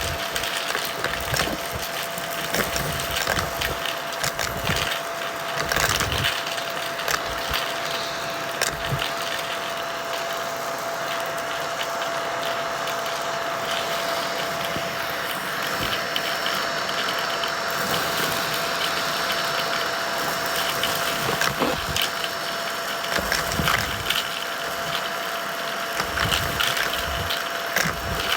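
Vacuum cleaner running steadily, with scattered crackles and clicks of crunchy debris being sucked up.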